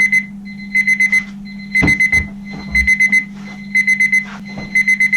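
Digital alarm clock going off: high beeps in quick groups of four, repeating about once a second. A steady low hum runs underneath, and there is a single knock about two seconds in.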